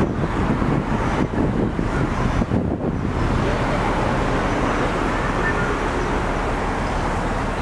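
Steady city street noise from road traffic.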